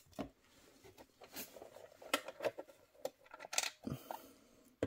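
Light clicks and taps of hands handling the pieces of a small model supermarket diorama, about a dozen scattered knocks with soft rustling between them.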